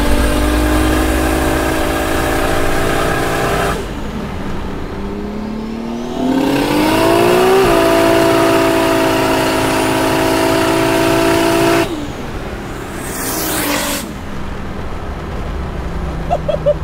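Single-turbo 2JZ-GTE inline-six in a Lexus IS300 pulling hard under full throttle. The engine note climbs, drops away about four seconds in, climbs again and holds a high steady note, then cuts off suddenly near twelve seconds, followed by a sharp hiss.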